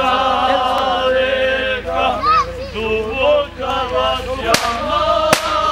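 A group of men singing together in long held notes, several voices overlapping, with two sharp cracks about a second apart near the end.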